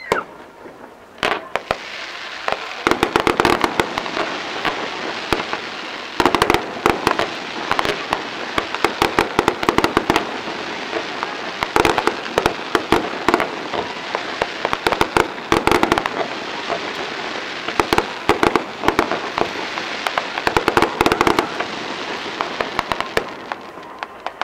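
Aerial fireworks going off: a fast, dense run of pops, bangs and crackles. It starts about a second in and thins out near the end.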